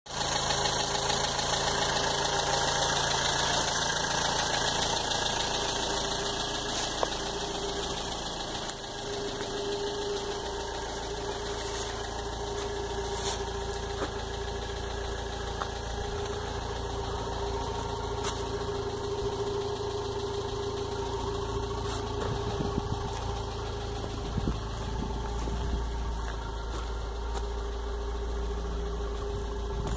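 A 1965 Volvo Amazon's four-cylinder engine idling steadily, heard first over the open engine bay and later nearer the exhaust, where a low rumble comes up.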